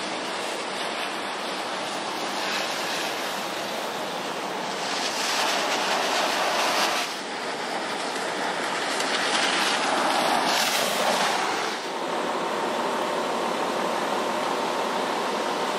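Storm wind and rain rushing steadily, growing louder in two swells a few seconds apart.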